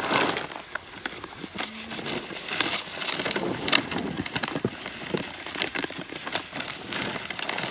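Snow shovel scraping and pushing snow across the ground, with irregular crunching and crackling strokes of packed snow throughout.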